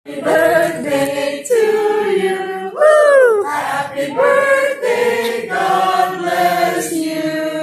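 A group of voices singing together, with long held notes and a swooping note about three seconds in; it starts abruptly.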